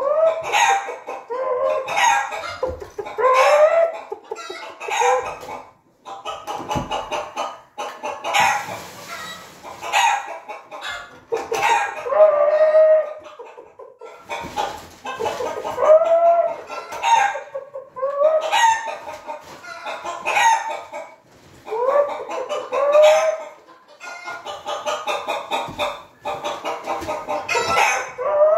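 Repeated chicken clucking and crowing calls, with an occasional knock.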